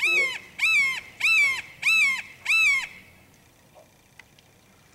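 A hawk calling five times in a row over about three seconds: loud, high calls, each rising quickly, holding, then dropping at the end. The calls stop about three seconds in.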